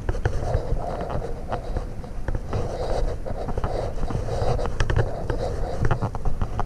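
Low rumble of wind and handling noise on the microphone, with scattered knocks and scrapes throughout.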